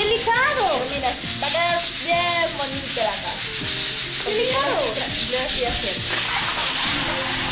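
Sandpaper rubbed by hand over a painted plaster wall, a steady scraping hiss, stripping old paint to ready the wall for repainting. Short gliding pitched sounds come over it a few times.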